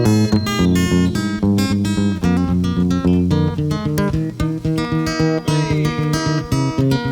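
Acoustic guitar strummed in a steady rhythm, played live as a song's instrumental lead-in.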